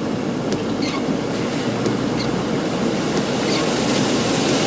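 Fast-flowing floodwater rushing in a steady, unbroken torrent.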